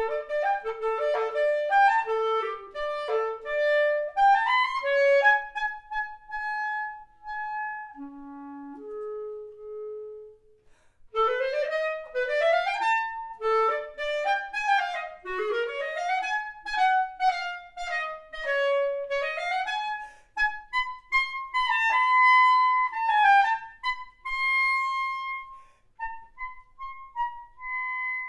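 Bass clarinet playing an unaccompanied-sounding melodic line: quick runs sweeping up and down, a couple of low held notes about a third of the way in, then more winding runs and long held high notes near the end.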